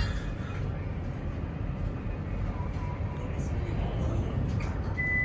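Interior running noise of a tram in motion: a steady low rumble from the wheels and traction equipment, with a short high beep near the end.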